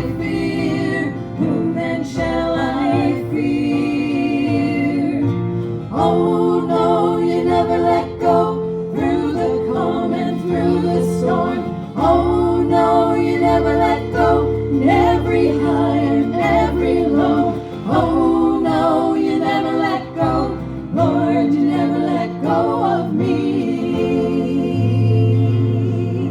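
Live worship music: singing with guitar and a steady bass line.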